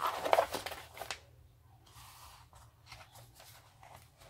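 Rustling and crinkling of a diamond painting canvas and its plastic cover sheet being handled and lifted, loudest in the first second, then softer rustles.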